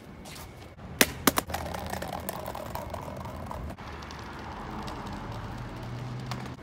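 City street noise with traffic going by. About a second in come three sharp clicks or knocks close together, the loudest sounds here.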